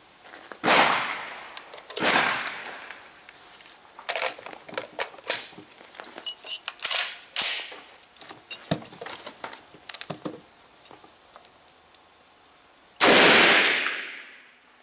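Loud gunshot reports with long echo about one and two seconds in, small metallic clicks and knocks between them, then near the end a single shot from the FN FAL 7.62x51 rifle, the loudest sound. With the gas port closed five clicks, the steel-cased round's empty case is not ejected, the piston only barely moving.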